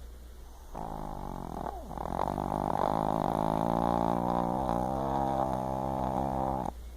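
Snoring: one long, drawn-out pitched snore starting about a second in and lasting about six seconds, growing louder after the first second or so.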